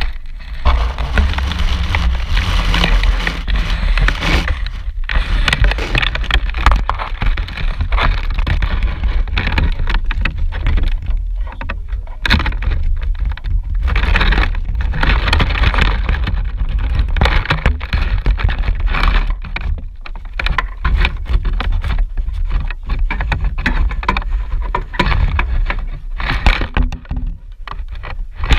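Dryer vent cleaning noise: a loud, continuous low rumble with rough scraping and rattling that swells and drops, briefly easing off a few times.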